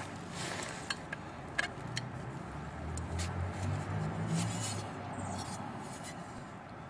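Light clicks and taps of a sump pump being handled, with a low rumble from about three to five seconds in.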